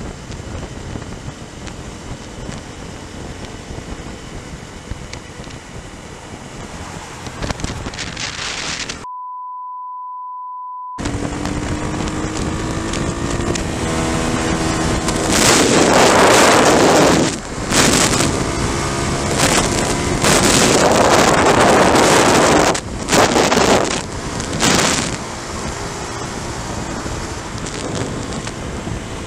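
Wind rushing over the microphone of a motorcycle-mounted camera, with the dirt bike's engine running beneath it. About nine seconds in, a two-second steady bleep replaces the sound; after it the engine revs up, rising in pitch, and several loud blasts of wind follow.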